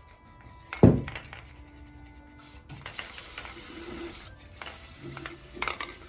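Aerosol can of matte spray varnish hissing in two spells, from about three seconds in and again just before the end, after a single dull thump about a second in.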